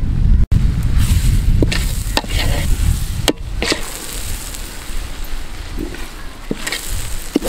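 A metal ladle stirs and scrapes noodles in a large aluminium pot over a wood fire, with frying and sizzling over a low rumble. The ladle clinks sharply against the pot several times.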